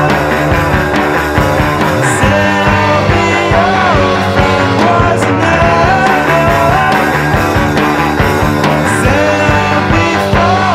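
Loud rock music soundtrack with a driving drum beat and bending melody lines over it.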